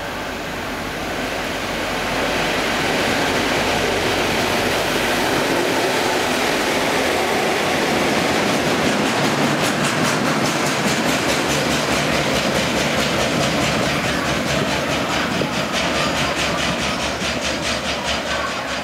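Freight train hauled by two EMD diesel-electric locomotives running through at speed close by. The sound grows louder over the first couple of seconds as the locomotives come up, then holds steady as the wagons roll past. In the second half a fast, even clatter of wheels on the rails comes through.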